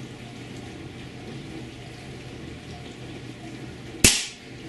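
An Air Arms S410 .22 calibre PCP air rifle firing a single shot about four seconds in: one sharp crack that dies away within half a second.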